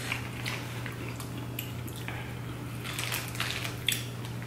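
Eating sounds: wet squishes, bites and small clicks as saucy seafood-boil food is chewed and pulled apart by hand, with light crinkles from the plastic boil bags, over a steady low hum.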